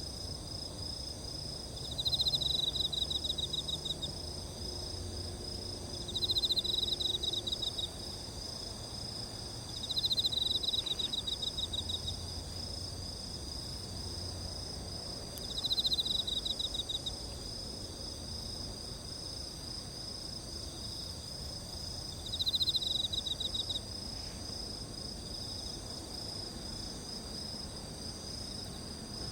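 Insects singing: a steady high-pitched chorus, with a louder pulsing trill of about a second and a half that comes back five times, every four to six seconds.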